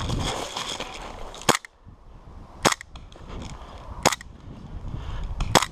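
Airsoft gun firing four single shots, spaced about a second and a half apart.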